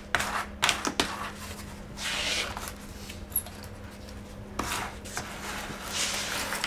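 Hand-work noises on a refrigerator back lined with aluminium foil tape: a few sharp knocks on the metal in the first second and another about halfway through, with short stretches of foil rubbing and crinkling as the tape is worked around the cooling-unit pipes.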